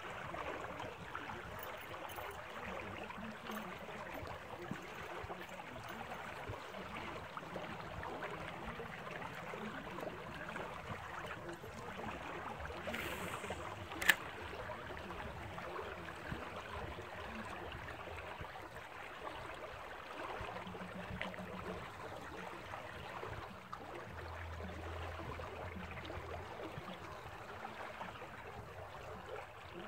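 Water pouring out of corrugated metal culvert pipes, a steady rushing and gurgling, with one sharp click about halfway through.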